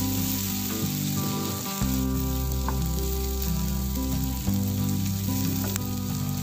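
Chopped onion, shallot and garlic sizzling as they sauté in butter in a frying pan, stirred with a wooden spatula. Background music with slow held bass notes plays over it.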